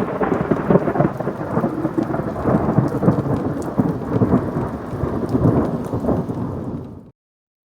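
Rain falling with thunder rumbling, a dense rolling noise that cuts off abruptly about seven seconds in.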